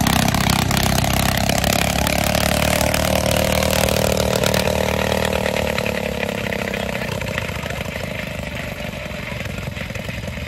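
A motorcycle engine running, its pitch easing slowly down and its sound fading over the first several seconds as it settles to a steady idle.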